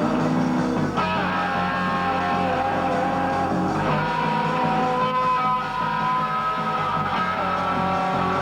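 Rock band playing an instrumental passage led by guitar, with chords changing every second or two and no singing.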